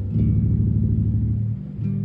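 Low guitar notes plucked and left to ring: one sounds for about a second and a half, and another is plucked near the end.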